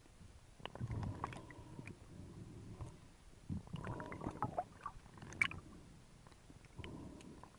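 Muffled underwater gurgling and sloshing of water around a swimming spearfisher, picked up through an underwater camera's housing, coming in three bursts about three seconds apart.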